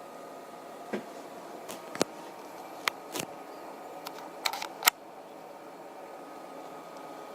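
Small CNC router spindle motor running with a faint, steady whine. Several sharp clicks come in the first five seconds.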